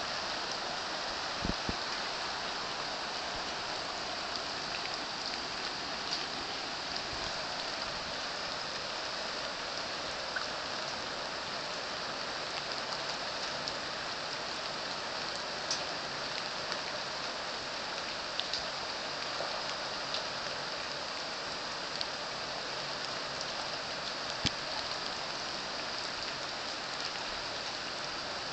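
Steady rain falling on trees and floodwater, an even hiss with scattered single drops ticking out now and then.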